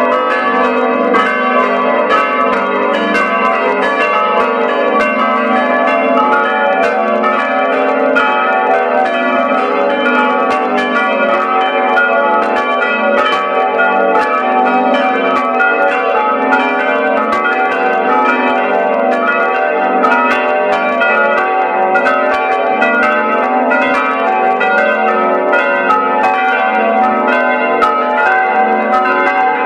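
Five church bells rung all together in a full peal, their strokes overlapping in a dense, continuous clangour of many pitches.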